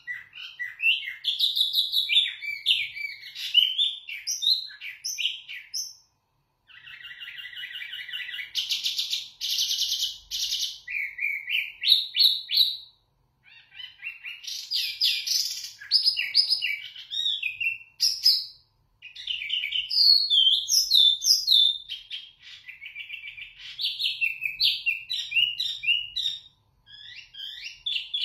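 A caged wambi mini songbird singing loudly and continuously: long phrases of rapid, high-pitched chirps and whistled notes that jump up and down, broken by a few short pauses. About a quarter of the way in comes a fast, buzzy trill lasting several seconds.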